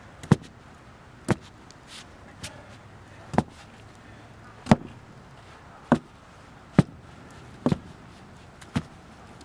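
Sledgehammer pounding the loose dirt around a wooden post to compact it: eight sharp thuds, irregularly spaced about a second apart.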